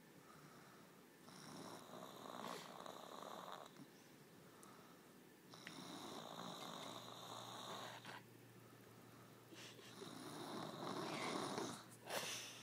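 Snoring in sleep: three long snores a few seconds apart, each about two and a half seconds, with quieter breathing between them. The last snore is the loudest.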